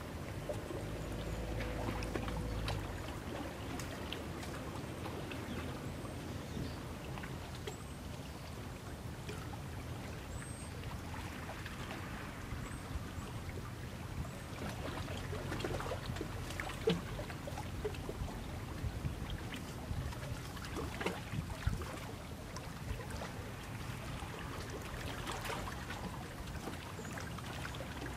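Water lapping and trickling against shoreline rocks over a steady low rumble, with scattered light clicks and knocks.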